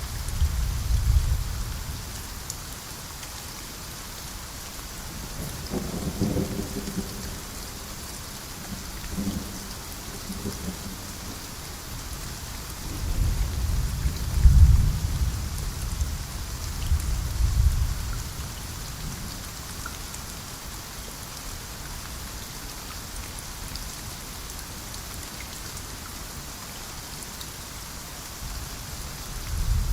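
Steady rain falling in a rainforest, with low rumbles of thunder rolling in at the start, again for several seconds around the middle, and near the end.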